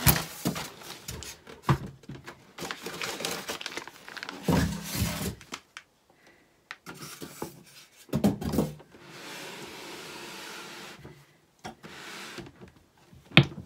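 Hard plastic knocks, clicks and rubbing as a new Brother M343D overlocker and its thread stand are handled and set in place, with a couple of heavier thumps and a steady rustle for about two seconds past the middle.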